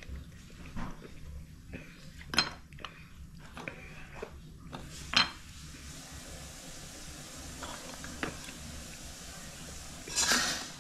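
Sea urchin (kina) shells being handled on a ceramic plate: light knocks and scrapes, with two sharp clinks, and a brief louder scraping rasp near the end.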